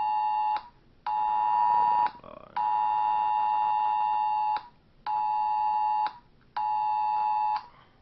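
Smartphone sounding the Wireless Emergency Alert attention tone for an Amber Alert: a loud, steady two-pitch electronic tone that keeps switching on and off. The bursts last about a second each, with one of about two seconds in the middle, and half-second gaps between them.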